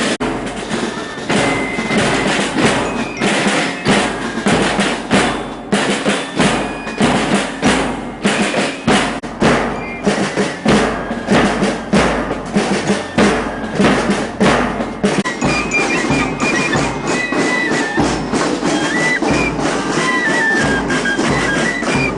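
Music with a steady percussion beat, regular drum strikes several a second, and a high melody of short held notes.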